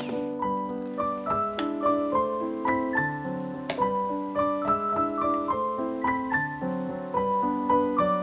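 Background piano music: a melody of single notes moving at an even pace over held lower notes.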